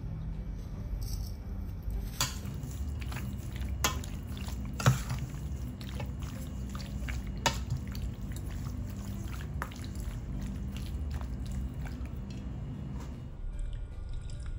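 A metal spoon clinking and scraping against a stainless steel bowl while it turns raw chicken pieces, with wet squishing of the meat. A few louder clinks stand out among the smaller ones.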